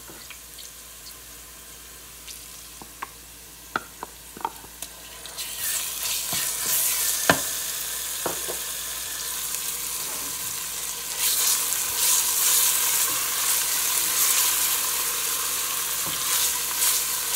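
Sliced onions and ginger-garlic paste frying in hot oil in a stainless steel pot, with a wooden spoon knocking and scraping against the pot. A few knocks sound over a low sizzle at first, then about five seconds in the sizzle rises sharply, as the wet paste hits the oil, and grows louder again near the middle.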